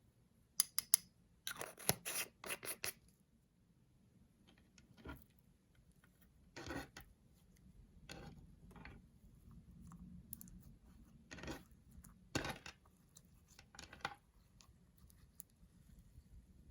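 Slime being mixed with makeup by hand: a quick run of clicks and scrapes in the first few seconds, then separate short scrapes and squishes every second or two.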